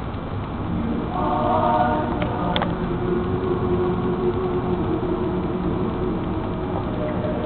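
Mixed high school choir singing sustained chords: a higher chord about a second in, then a lower chord held for a couple of seconds.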